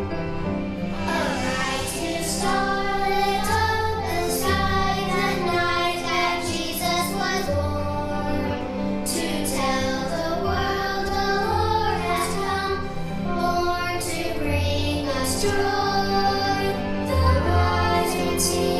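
A group of children singing a Christmas song with instrumental accompaniment.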